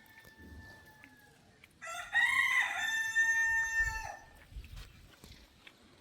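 A rooster crowing once: one loud crow lasting about two seconds, starting about two seconds in. A fainter, long, drawn-out call is heard in the first second.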